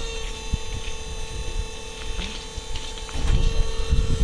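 Steady electric whine of the track machine's emergency backup electric motor driving the hydraulic pump as it raises the lifting and tamping unit, with a low rumble swelling near the end.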